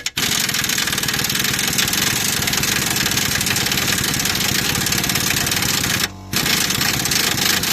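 Impact wrench hammering on a socket to undo a stubborn 18 mm bolt on a car's lower ball joint. It runs in one long burst of about six seconds, stops briefly, then runs again near the end as the bolt comes free.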